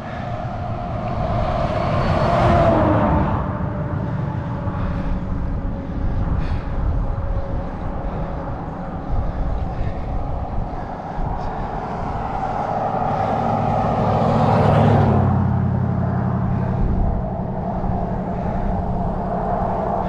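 Motor vehicles passing on the road: one about two seconds in, its engine tone falling as it goes by, and another around fifteen seconds in, each swelling and fading. Steady low wind rumble on the microphone runs underneath.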